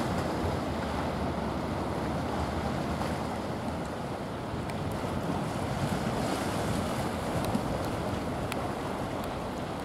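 Steady wind noise on the microphone over the wash of sea waves, with no ship's engine tone standing out. A few faint ticks in the second half.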